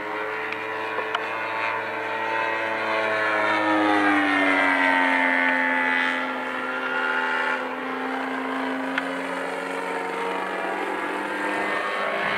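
RC model airplane flying past overhead, its motor and propeller droning steadily. It gets louder a few seconds in, and the pitch drops as it goes by, then rises again near the end.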